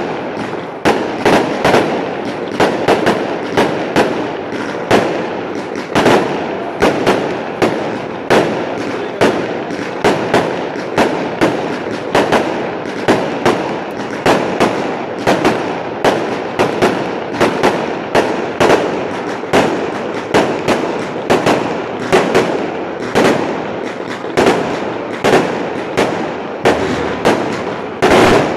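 Aerial fireworks going off in quick succession: sharp bangs about two or three a second over a constant din of further bursts.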